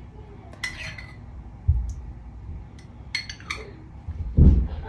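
Metal spoon clinking and scraping against a mayonnaise jar and a glass baking dish while spoonfuls of mayonnaise are scooped out and dropped onto the salad, with a few sharp clinks and a couple of dull thumps, the louder one near the end.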